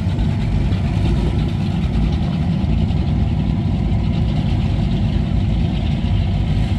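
Red high-performance catamaran powerboat's engines idling with a steady, deep rumble as the boat idles slowly through the harbor.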